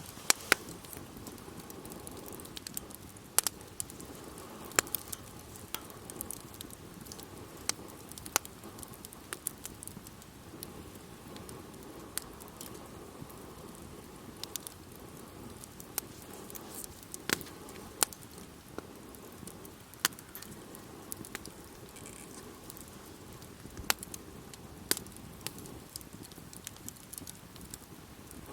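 Wood bonfire crackling: irregular sharp pops and snaps, a few of them much louder, over a soft steady hiss from the burning.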